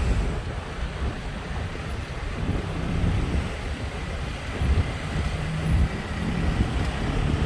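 Busy road traffic: engines of cars and trucks running and passing close by, low engine tones rising and fading over a steady road noise.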